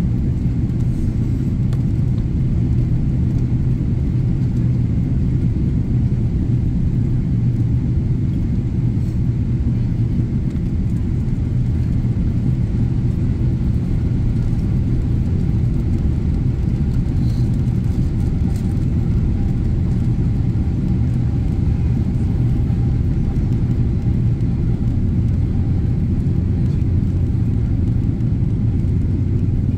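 Steady low rumble of engine and airflow noise heard inside the cabin of a Boeing 777-300ER with GE90 engines, during descent, at a constant level with a faint steady hum above the rumble.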